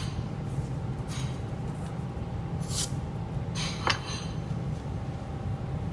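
Light handling noises: a couple of brief scrapes and one sharp clink about four seconds in, over a steady low hum.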